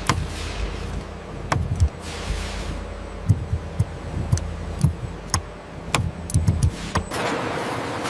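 Background music with low thumps and sharp clicks scattered through it.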